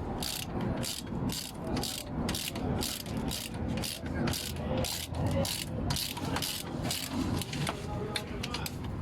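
Ratchet wrench clicking in quick back-and-forth strokes, about three clicks a second, as the 13 mm mounting bolts of a truck's air-conditioning compressor are tightened.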